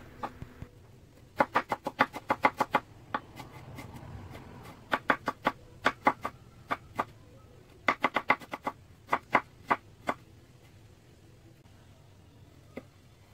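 Cleaver chopping burdock root into fine julienne strips on a wooden cutting board: quick runs of sharp knife taps against the board, in three bursts, stopping about ten seconds in.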